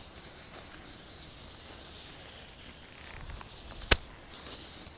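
Hand-pump garden pressure sprayer hissing softly as its wand mists the leaves of potato plants. One sharp click comes about four seconds in.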